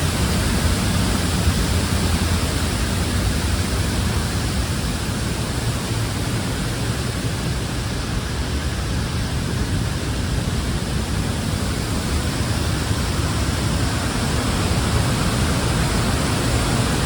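Steady roar of a dam-spillway waterfall heard close up from the path behind the falling water, a dense even rush with a heavy low rumble.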